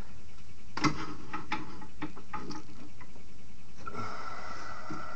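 Wood lathe running with a steady hum as a scrap-wood file handle is smoothed. There are a few light clicks and taps in the first half, and from about four seconds in a steadier higher hiss as something rubs the spinning wood.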